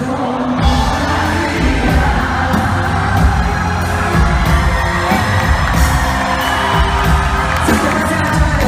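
Live band playing a ballad with a woman singing over it and a steady drum beat, with crowd cheers and whoops underneath.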